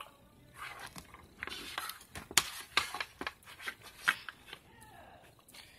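A plastic toy makeup palette being handled at a table: an irregular run of light clicks, taps and rustles as its parts are moved and picked at, for about four seconds before it settles down.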